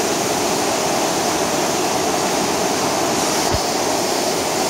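Spring-fed mountain stream rushing over rocks, a steady, even rush of water.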